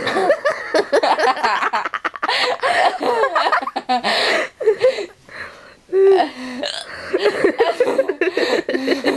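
A woman hiccuping over and over, mixed with bouts of laughter. The laughing is dense through the first half, and a loud, sudden hiccup comes about six seconds in.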